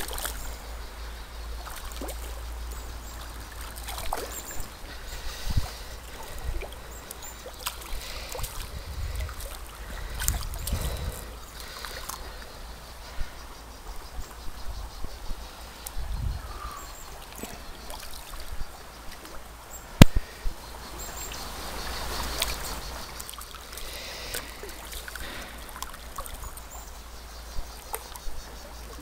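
A shallow stream runs over stones, with a steady low rumble on the microphone and scattered clicks and knocks from handling the rod and reel. One sharp click comes about twenty seconds in.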